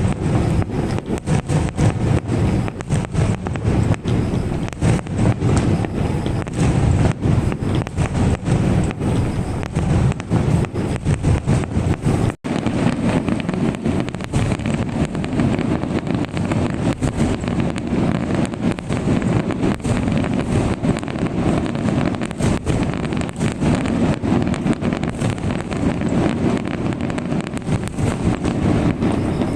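Fireworks going off in rapid succession: a dense run of booms and crackles with heavy low rumble, broken by a short gap about twelve seconds in.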